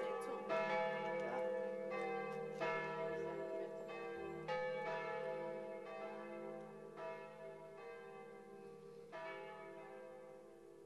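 Church bells ringing to call the faithful to evening mass: several bells strike in overlapping strokes every second or two over a steady ringing hum, gradually getting fainter.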